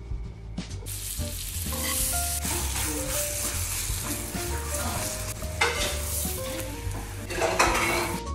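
Butter sizzling on a chapati in a hot frying pan as a spoon spreads it, starting about a second in and flaring louder twice near the end. Background music plays under it.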